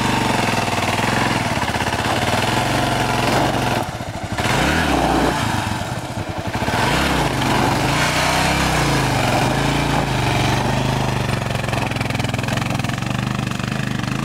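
Kawasaki KLR650 single-cylinder engine revving hard under heavy load as the loaded bike claws up a loose, rocky climb, its rear tyre spinning and throwing dirt. The revs sag twice, about four and six seconds in, then pick up again.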